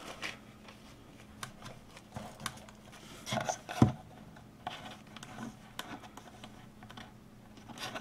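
Faint rustling, scratching and tapping of fingers handling a small wooden birdhouse and smoothing a paper napkin onto its side, with a sharper knock a little before four seconds in.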